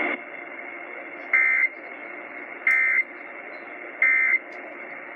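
Emergency Alert System end-of-message code: three short bursts of digital data tones about 1.3 seconds apart, over steady radio hiss, marking the end of the alert.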